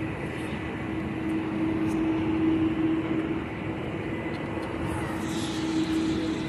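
Jet airliner landing, its engines heard at a distance as a steady roar, with a constant low hum throughout.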